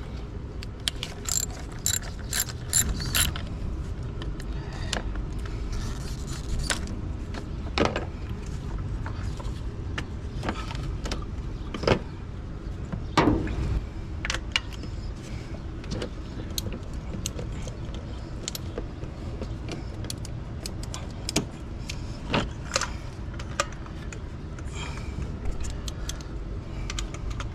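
Hand tools working on the ignition coil bolts: a socket ratchet clicking and metal tools knocking and clattering in irregular bursts, over a steady low background rumble.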